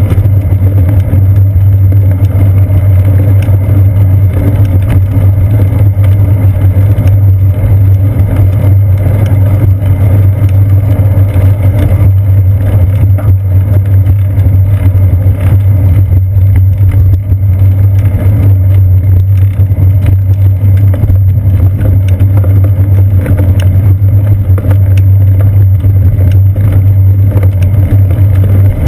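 Steady, loud low rumble of wind and road vibration picked up by a seat-post-mounted GoPro Hero 2 in its housing as the bicycle rolls along a paved path.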